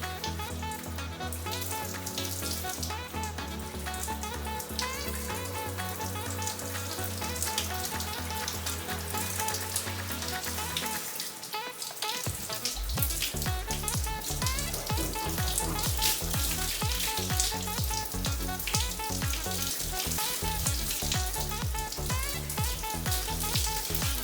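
Background music with a bass line that drops out briefly about halfway through, then comes back with a steady beat and a crackly high hiss.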